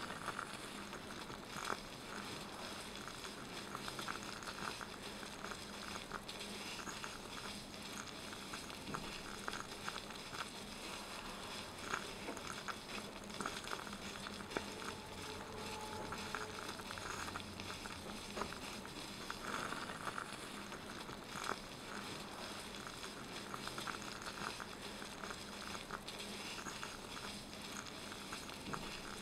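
Broth simmering in a miniature copper hotpot: a steady fizz with frequent small bubbling pops and crackles.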